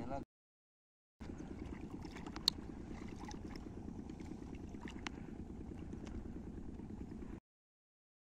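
A steady low rumble with a few sharp clicks, the loudest about two and a half seconds in; the sound cuts out completely near the start and again near the end.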